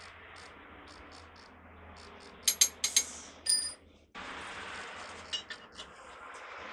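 Steel parts and tools clinking against each other during work on a truck wheel hub: a quick cluster of sharp clinks about two and a half seconds in, the last one ringing briefly, then a few lighter clicks.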